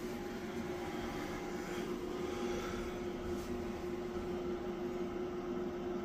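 Cooling fans of a solar inverter running under a load of about 350 watts at 20% fan speed: a steady whir with a low, even hum tone through it.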